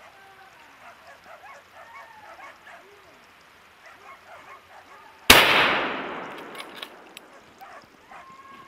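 Hunting dogs baying and yelping in the distance, then a single shot from a scoped hunting rifle a little past halfway. The report dies away over about a second and a half, and the dogs carry on after it.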